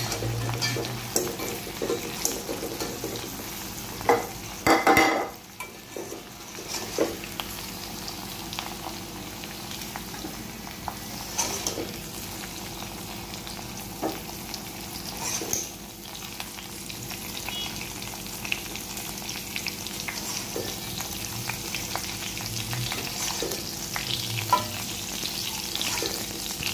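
Cut okra sizzling in hot oil in a kadai while a wire-mesh spider strainer scoops the pieces out, with scattered scrapes and clinks of the strainer against the pan, the loudest about five seconds in.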